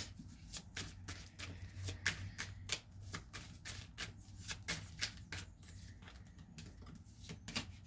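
A deck of tarot cards shuffled by hand: a long, irregular run of soft, quick card clicks and slaps, several a second.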